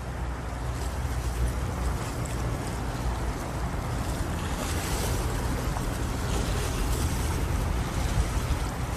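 Wind rumbling on the microphone over the steady wash of small sea waves against the wall below.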